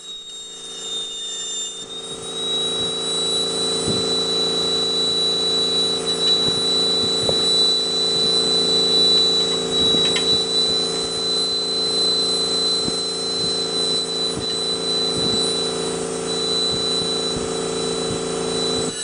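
High-speed engraving handpiece with a burr cutting into glass, running with a steady high-pitched whine over a lower hum. It comes up to speed over the first couple of seconds, with faint light ticks from the burr on the glass.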